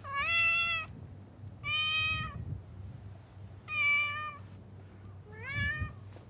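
Domestic cat meowing four times, each call about half a second to a second long and roughly a second and a half apart; the last meow rises in pitch.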